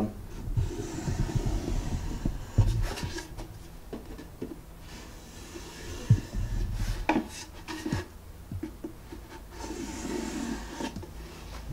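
A pencil marking gauge rubbing and scraping in several passes along a solid pine board, marking a line, with a few light knocks as the board and gauge are handled.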